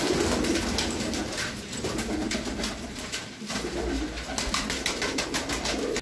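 High-flyer pigeons cooing in a low warble, with many sharp clicks and taps scattered through.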